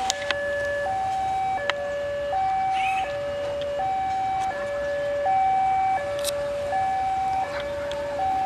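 Electronic level-crossing warning alarm, sounding to signal an approaching train. It plays a steady two-tone alternation, high and low, each tone held about two-thirds of a second, with a few sharp clicks over it.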